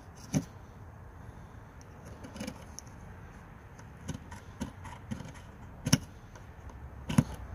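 Swiss Army knife can opener scraped down a small ferrocerium rod in about seven short, quick strikes at uneven intervals. The can opener is being tried as a fire striker and is not yet throwing a good shower of sparks.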